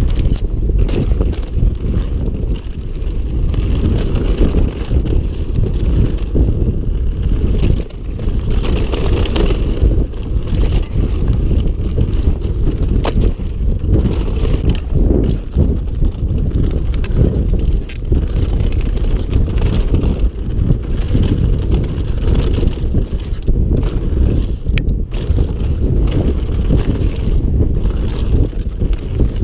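Mountain bike running fast down a rocky gravel trail: a continuous clattering rattle of tyres and frame over loose stones, with wind buffeting the on-board camera microphone.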